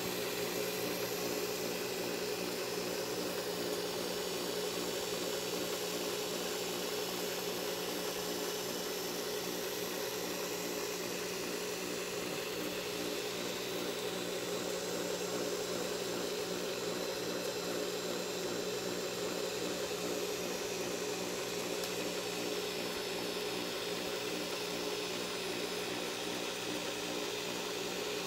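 Steady mechanical hum of a cable-driven servo arm's power-assist capstan spinning continuously, with micro servos working the cables wrapped around it. The hum holds an even pitch throughout, with no pauses or changes.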